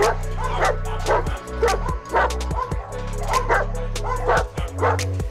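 Caucasian Shepherd dog barking over and over, about two barks a second, over background music with a steady bass.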